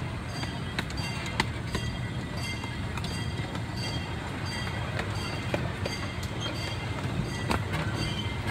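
Small-gauge zoo train rolling along its track, heard from an open coach: a steady low rumble with scattered sharp clicks and knocks.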